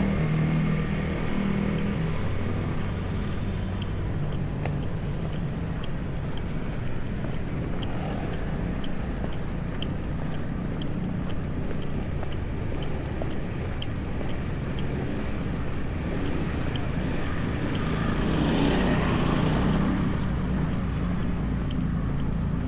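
Steady street traffic rumble from passing motor vehicles, with one vehicle passing close by, swelling and fading about nineteen seconds in.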